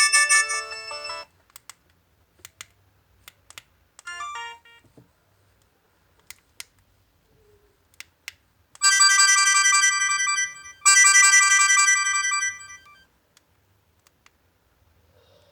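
LG MG160a mobile phone's alarm tone, an electronic melody, playing and cutting off about a second in. Scattered clicks and a short run of falling beeps follow. The alarm melody then plays again in two bursts, from about nine to thirteen seconds.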